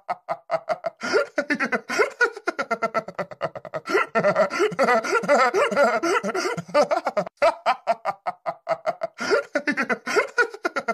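Cartoon character's laughter: long runs of quick, chuckling 'ha-ha' pulses, breaking off briefly a few times.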